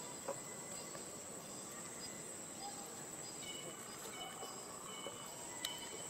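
Steady high-pitched drone of an insect chorus, with two faint clicks, one just after the start and one near the end.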